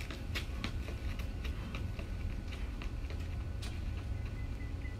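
Quick footsteps of sneakers on concrete during a carioca crossover drill: sharp taps about three to four a second, growing fainter toward the end as the runner moves away.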